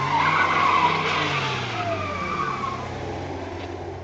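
Honda Civic's four-cylinder engine revving hard as its tyres squeal and spin through a donut. The squeal is loudest in the first two seconds, and the engine note falls away toward the end.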